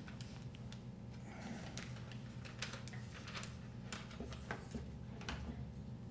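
A scatter of irregular light clicks and taps, about a dozen, over a steady low hum.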